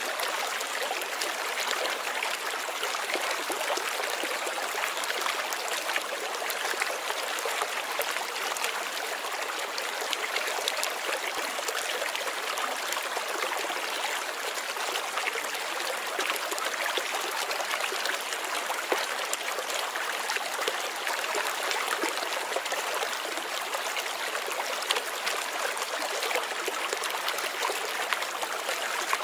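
Steady running water of a flowing stream, with a light trickling, unbroken throughout.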